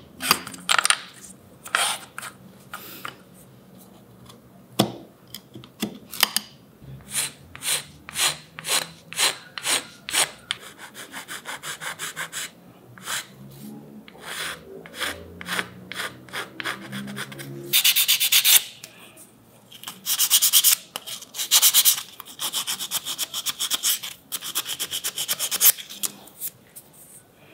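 Hand tools shaping a small walnut wedge: a chisel paring off shavings in a run of short, crisp strokes, then denser rubbing, rasping strokes as the piece is smoothed by hand in long bursts over the second half.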